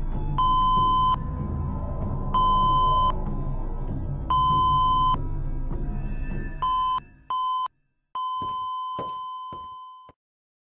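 Heart (EKG) monitor beeping, one high beep about every two seconds over a low drone, then two quicker beeps and a long unbroken flatline tone that fades away near the end. The flatline tone is the monitor's signal of a heart that has stopped.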